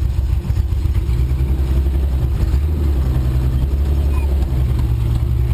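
1983 Ford Ranger's 2.8-litre V6 engine running under load while driving off-road, a steady low rumble whose pitch shifts slightly a couple of times.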